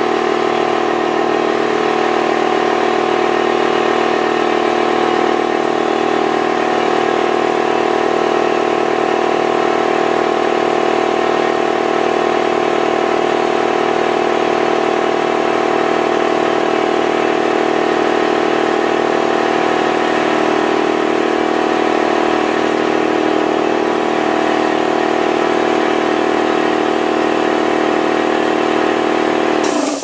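Central Pneumatic oil-lubricated upright air compressor running steadily, its electric motor and piston pump filling the tank with an even, loud hum. It is switched off at the very end.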